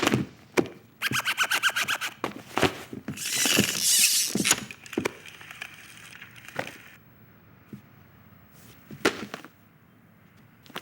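Film Foley sound effects for moving toys: a string of sharp wooden-sounding clicks and knocks, a fast rattle about a second in, a rushing whoosh a few seconds in, then a few scattered single knocks.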